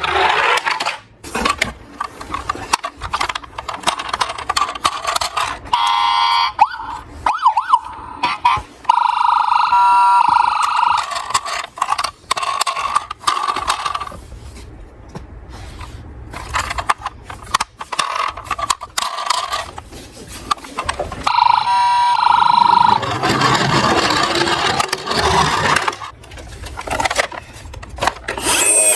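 Electronic siren sounds from toy emergency vehicles, coming in several short pulsing spells, among many clicks and clatters of the plastic toy cars being handled.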